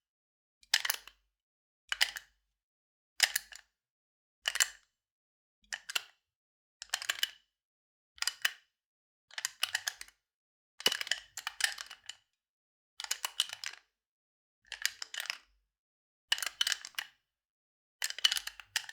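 Gun handling sound effect: short clusters of metallic clicks and rattles from a firearm being handled, repeated a little over a second apart with dead silence between them.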